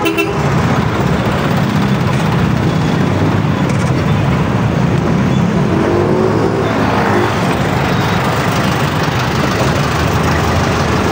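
Steady road traffic: vehicle engines running close by in a busy street, with a brief pitched sound about six seconds in.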